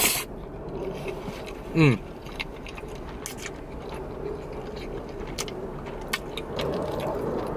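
A person eating fettuccine Alfredo with cheesy chicken parmesan: a loud slurp of noodles right at the start, then a short falling 'mm' from the voice about two seconds in. After that comes quiet chewing with small sharp mouth and fork clicks.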